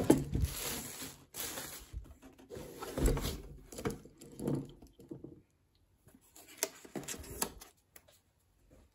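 Rustling and crinkling of a white wrapping sheet as it is pulled off a boxed projector, with a few knocks from handling in its foam packaging. The rustling dies down about halfway through, leaving a few sharp taps.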